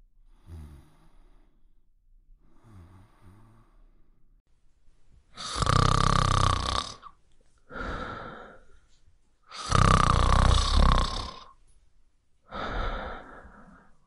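A man snoring in deep sleep with his mouth open: faint breathing at first, then two loud snores about four seconds apart, each followed by a softer breath out.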